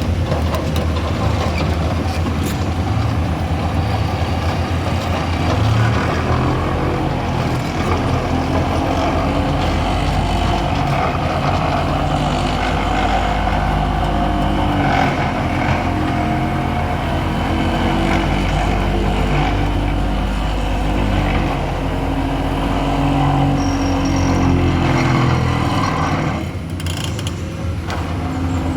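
A large vehicle's engine running close by, its note shifting up and down; it drops slightly quieter near the end.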